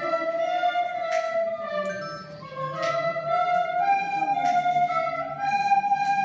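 A group of children playing soprano recorders together, a slow melody of long held notes with a lower accompaniment underneath; the sound dips briefly about two seconds in, between phrases.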